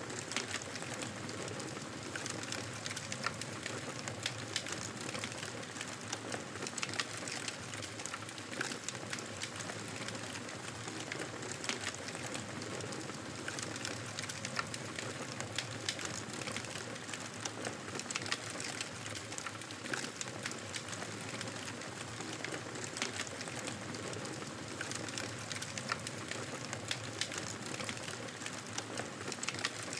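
Wood fire burning with a steady hiss and frequent sharp crackles and pops.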